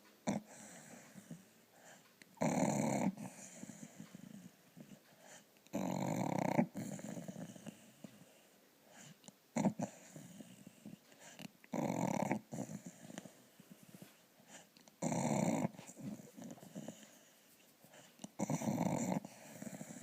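A dog snoring in its sleep: five strong rasping snores, each under a second long, come about every three to four seconds, with softer breathing noise between them.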